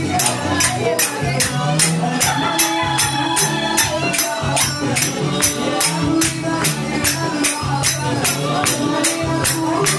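Metal finger cymbals (zills) struck in a steady rhythm, about three to four bright strikes a second, over music with singing.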